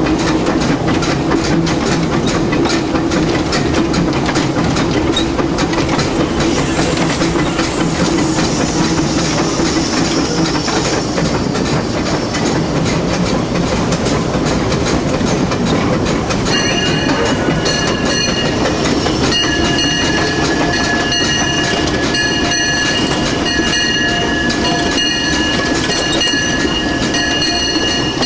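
Disneyland Railroad steam locomotive under way, heard from inside the cab: a steady, loud running noise of the engine and wheels with a rapid, rhythmic clatter. About halfway through, a high squeal joins in and keeps breaking in and out.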